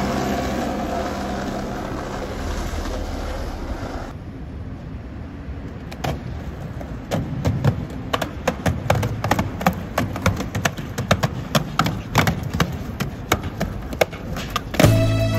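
Skateboard sounds without music: a rolling noise fading over the first few seconds, then a rapid, irregular run of sharp clicks and knocks.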